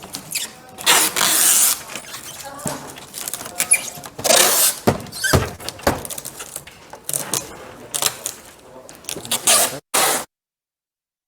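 Adhesive packing tape being pulled off the roll and stretched tight in a series of short ripping bursts, with handling knocks and clicks. The sound cuts to dead silence about ten seconds in.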